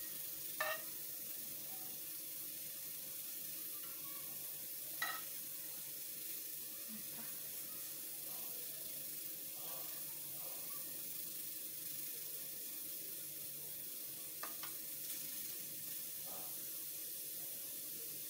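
A spoon tapping and scraping a few times while spooning thick kefta-and-tomato sauce onto slices of toast in a baking tray, over a steady hiss.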